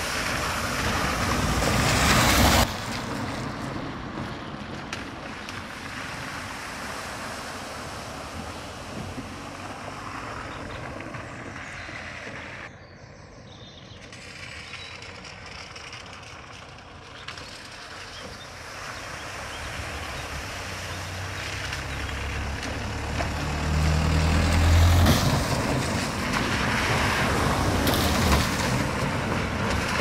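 Cars and vans driving through a shallow ford one after another, their tyres sloshing and spraying water. A loud splash cuts off suddenly a few seconds in. After a quieter stretch, an engine grows louder as another vehicle drives into the water, loudest a few seconds before the end, and splashing carries on to the end.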